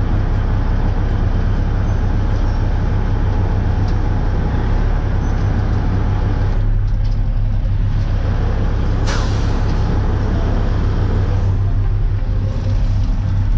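Dump truck's diesel engine running steadily, with one short air-brake hiss about nine seconds in.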